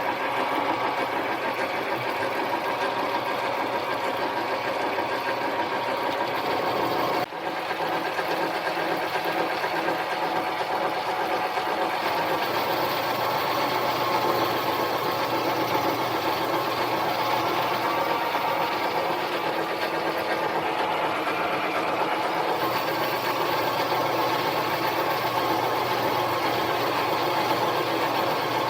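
Harbor Freight mini lathe running steadily under load, its motor and gear train whining as it works a 1-inch hole through a spacer, with a brief break about seven seconds in.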